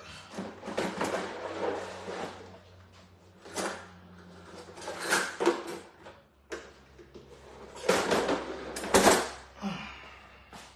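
Kitchen handling noises: irregular rustles, bumps and clatters, loudest about eight to nine seconds in.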